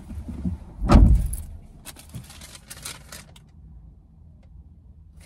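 A dull thump about a second in, then about two seconds of rustling and clattering as shopping is rummaged through by hand.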